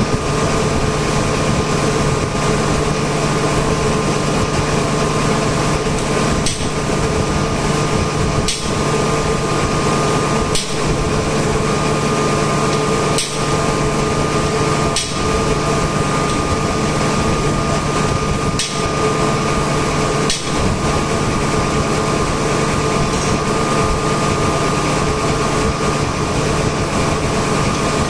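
Hammer striking a steel drift held against the housing of a vane air compressor airend: single sharp metal taps every two seconds or so through the middle. A steady machinery hum runs underneath throughout.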